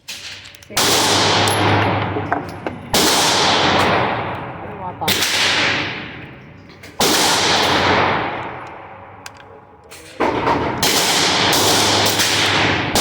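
A string of pistol shots, each cracking out and then trailing off in a long echo: four about two seconds apart, then a quicker run of several near the end.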